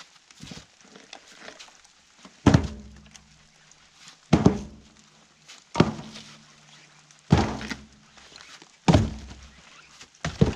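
Split firewood pieces tossed one at a time into a utility trailer, each landing with a hard thunk followed by a short low ring. There are six throws, about one every one and a half seconds, starting about two and a half seconds in.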